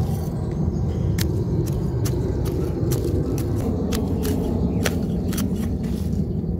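A khurpi's flat metal blade scraping and cutting through a dense hibiscus root ball, with irregular sharp clicks as roots break, about one or two a second. A steady low rumble runs underneath.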